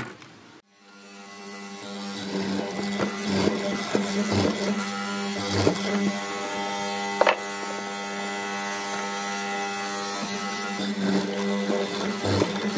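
Benchtop hollow-chisel mortiser running, its electric motor giving a steady hum. The square chisel plunges again and again into a wooden rail to cut a mortise, with a short crunch each time it bites. The hum starts about half a second in.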